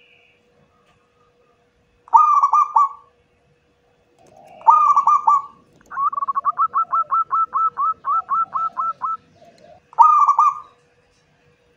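Zebra dove (perkutut) cooing: short phrases a few seconds apart, and from about 6 to 9 seconds in, a fast run of about sixteen quick repeated coo notes, around five a second.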